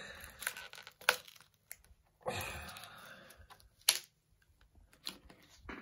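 Plastic base plate of a Bowers & Wilkins Zeppelin Air speaker being prised off against adhesive: a few sharp cracks as the glue lets go, with a rough scraping stretch of about a second in the middle.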